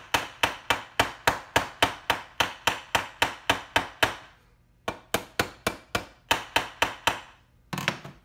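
Ball-peen hammer lightly tapping on the rusty bolt threads of a Honda Mitsuba starter, metal on metal, in quick even strikes about four a second. The taps stop briefly about halfway through, then resume for a couple of seconds, with one short knock near the end. The tapping helps rust penetrant work into the threads so the rusted bolts will come out.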